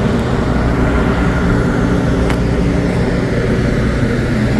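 Motor vehicle engine idling steadily, a low even hum, with one short click about two and a half seconds in.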